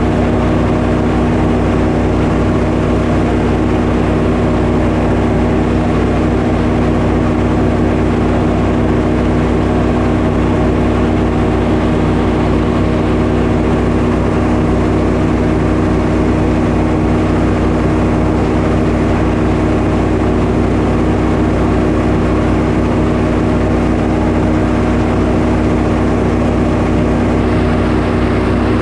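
Sawmill engine running steadily at a constant speed while milling a pine log.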